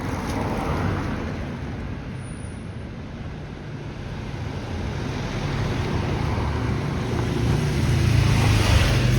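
Road traffic noise with a vehicle engine running close by. It grows louder over the second half.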